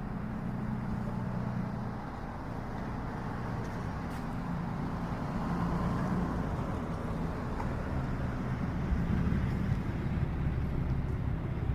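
Road traffic: vehicle engines running with a steady rumble and road noise, growing slightly louder toward the end.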